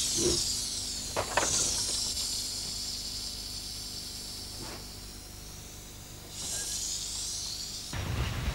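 Steam hissing from a narrow-gauge forest-railway steam locomotive, swelling and fading in waves, with a couple of faint knocks a little over a second in. The hiss swells up again near the end, and a low rumble comes in under it.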